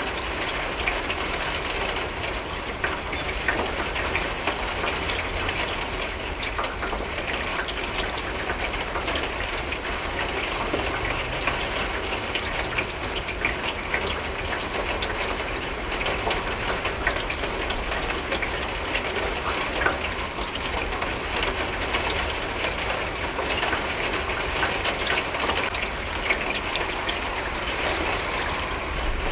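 Steady rain falling and pattering on a window pane, with dense small drop ticks over a low rumble.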